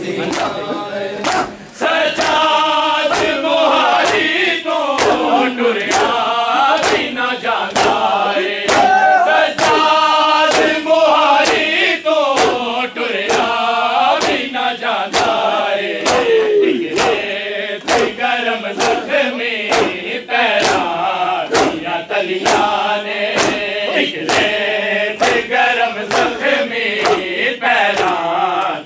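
Crowd of men chanting a mourning noha in unison, with the sharp slap of hands striking bare chests (matam) on a steady beat.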